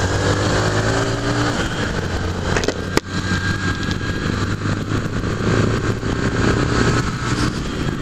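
Honda CG 150 Fan's single-cylinder four-stroke engine running under way in city traffic, its note rising during the first second and a half. There is one sharp click about three seconds in.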